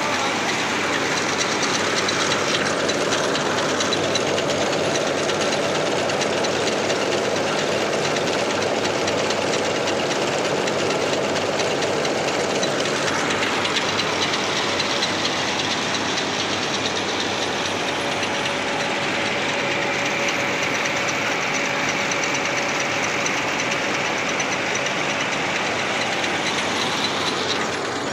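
Tractor-powered rice mill running steadily while milling paddy, a loud, dense, even mechanical din.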